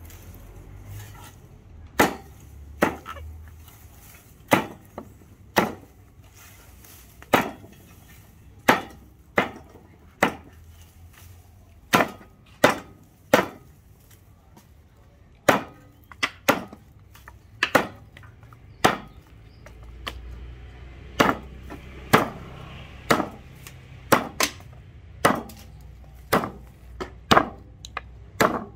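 Plumb Boy Scout hatchet chopping green branches against a wooden stump block: sharp chops about once a second, some in quick pairs.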